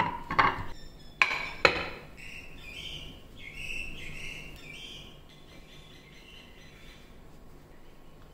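Wooden chopping board knocked down onto a kitchen countertop: a few hard knocks in the first two seconds, the last two the loudest. Then a few seconds of quieter rubbing as ivy gourds are wiped with a cloth.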